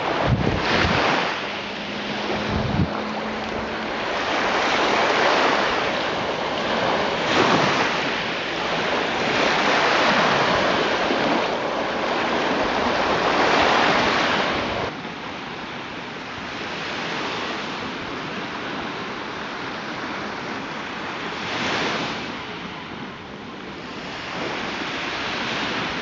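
Small Black Sea waves washing onto the beach, the surf swelling and ebbing every few seconds, with wind buffeting the microphone. The surf is quieter in the second half.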